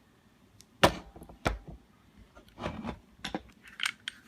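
Glock pistols being handled: about half a dozen short knocks and clicks of the guns being moved about and set on a hard surface. The loudest knock comes about a second in.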